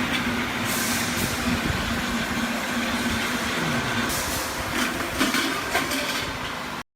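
Workshop machinery running: a steady motor hum with a held low tone, and a few short hissing surges.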